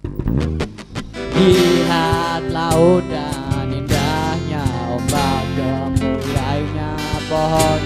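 Live band music with acoustic guitars strumming chords over a steady bass, and a wavering melody line on top. The music comes back in right at the start after a brief break.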